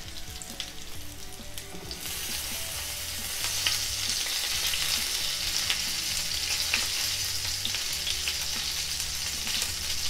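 Chicken seekh kebabs sizzling in hot oil in a frying pan, with small crackles, while one is held against the pan with wooden spoons to cook an underdone end. The sizzle grows louder about two seconds in and then holds steady.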